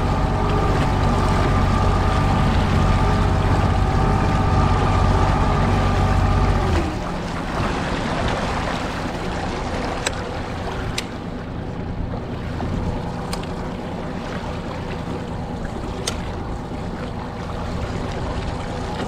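Boat's outboard motor running steadily, then throttled back about seven seconds in: its pitch drops and it gets quieter, running on at low speed. A few sharp clicks in the second half.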